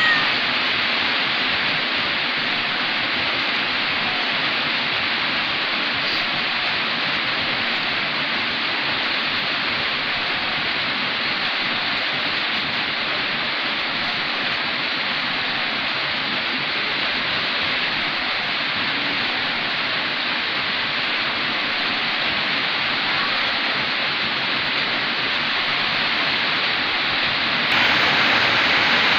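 A steady, even hiss of noise with no distinct events, a little louder near the end.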